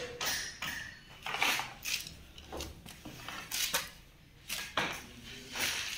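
Irregular light clinks, knocks and rustling of pipe fittings and tools being handled.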